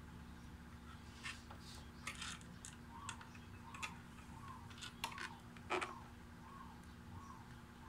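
Scattered small clicks and taps of hands working at motorcycle wiring connectors with a test light probe, the sharpest a few seconds in.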